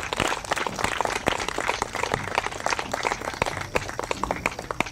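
Guests clapping and applauding, a dense patter of many hands that thins out near the end.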